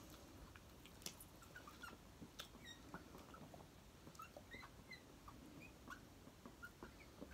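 Faint pen strokes on paper: short, scattered squeaks that glide up or down, with a few light taps.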